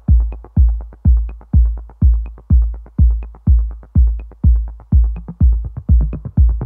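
Electronic dance music: a steady kick drum about two beats a second, with a light high tick on every other beat.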